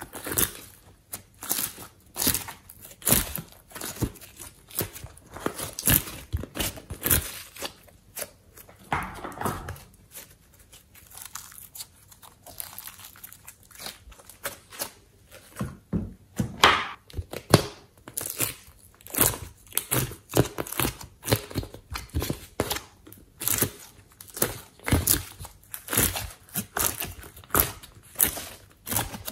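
Slime mixed with clay being squeezed, stretched and folded by hand, giving rapid, irregular sticky clicks and crackles. They thin out for a few seconds near the middle.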